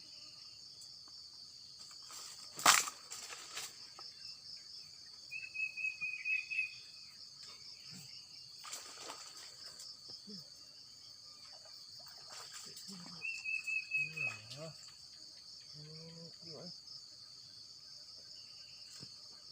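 Steady high-pitched insect chorus, pulsing evenly, with a short trilling call twice and a sharp knock about two and a half seconds in.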